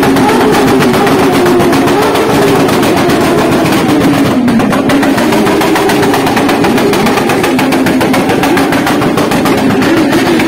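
Sport motorcycle engines revved hard and held high, a loud rapid rasp whose pitch sags and climbs again a few times.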